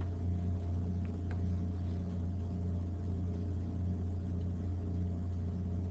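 Steady low electrical hum of the recording setup with a few faint steady tones above it, and two faint clicks about a second in.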